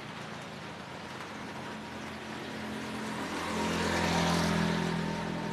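Steady engine hum that grows louder about three and a half seconds in, then fades again.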